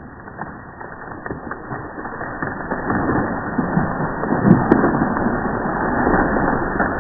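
Wood creaking and splintering, crackling louder over a few seconds, with two sharp cracks about four and a half seconds in.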